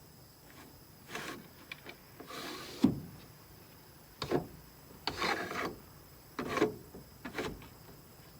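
Sliding side-window glass of a Land Rover Series 2A station wagon being pushed back and forth in its freshly cleaned felt-lined channel: about six short rubbing scrapes, with a sharp knock about three seconds in as the pane reaches its stop.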